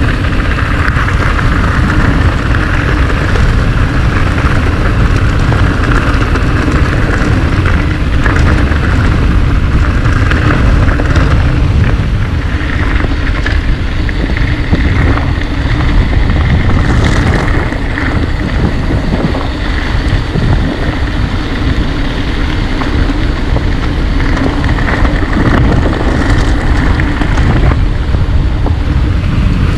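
Mountain bike descending a rough trail: wind rushing over the microphone and tyres rolling, with the bike knocking and rattling over bumps.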